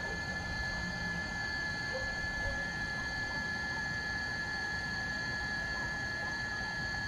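Insects chirring in several steady high-pitched tones, over a low, even rumble from a distant freight train.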